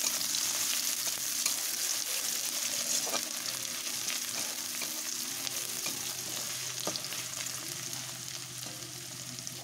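Sliced onions sizzling in hot oil in a kadai, with a spatula stirring and scraping them and a couple of sharper clicks against the pan.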